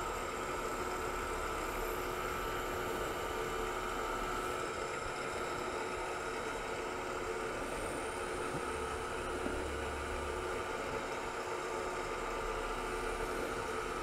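Wood lathe running steadily, a steady motor hum, while a guitar-string burning wire is pressed against the spinning wooden spindle to friction-burn a ring into it.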